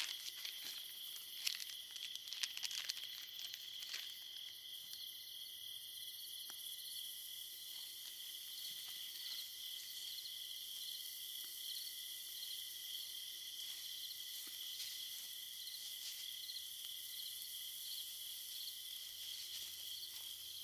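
Night insects chirring steadily in a high, even drone. A few clicks and knocks stand out in the first four seconds, the loudest moments, while bacon-wrapped asparagus is laid on the campfire grate.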